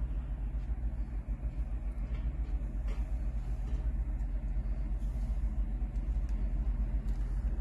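Heavy truck's diesel engine idling: a steady low rumble heard inside the cab, with a few faint small ticks of a knife working on wire insulation.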